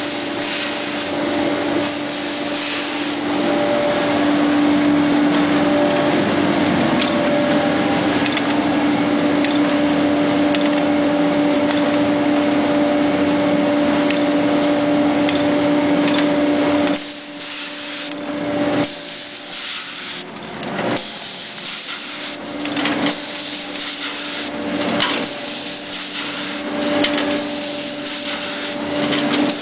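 Müller Martini Starbinder 4245 perfect binder running: a steady motor hum under a broad hiss. In the second half the hiss breaks off and comes back every second or two.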